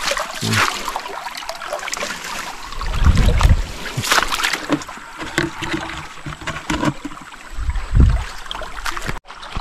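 Shallow river water sloshing and splashing as someone wades and gropes by hand along the bottom, with a few sharper splashes.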